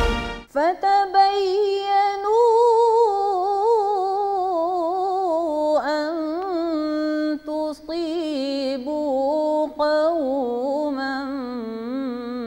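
Band music breaks off in the first half second. Then a solo voice sings alone, holding long, wavering, ornamented notes that slowly fall in pitch, with short breath breaks: the free, unaccompanied opening of a Punjabi Sufi song.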